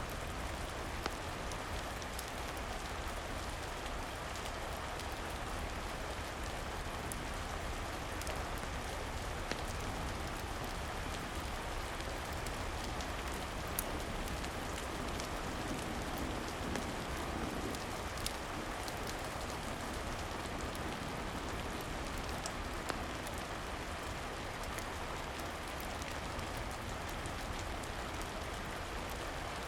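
Steady rain falling, an even hiss with scattered small clicks and ticks.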